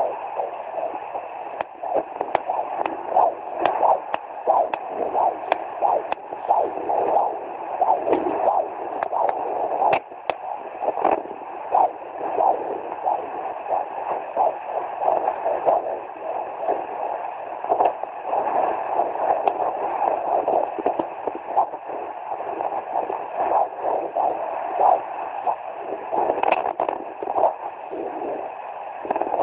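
Fetal heartbeat at 17 weeks picked up by a handheld fetal Doppler: fast, rhythmic pulsing from the Doppler's speaker over steady static.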